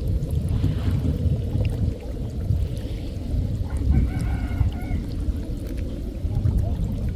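Steady low wind rumble on the microphone, with a single drawn-out bird call of about a second, about four seconds in.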